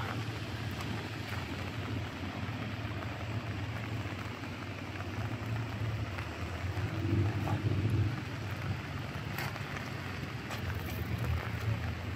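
Steady rushing of a waterfall in the rain, with a low rumble of wind on the microphone, swelling a little about seven to eight seconds in.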